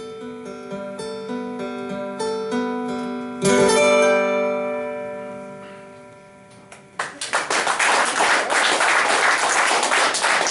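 Two ukuleles picking the last notes of a folk song, ending on a chord struck about three and a half seconds in that rings out and fades away. About seven seconds in, audience applause breaks out and continues.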